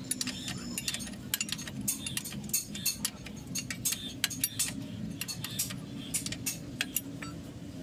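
Irregular metallic clinks and clicks of a spanner working a nut on a Bedford truck's front steering knuckle, several a second, over a steady low hum.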